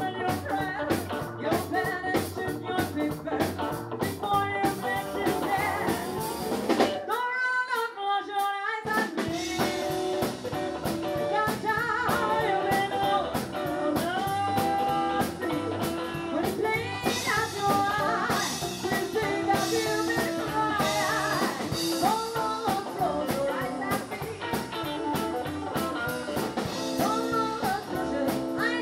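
Rockabilly band playing live: a woman singing lead over upright bass, drum kit and electric guitar. About seven seconds in the band stops for a moment while the voice goes on alone, then the band comes back in.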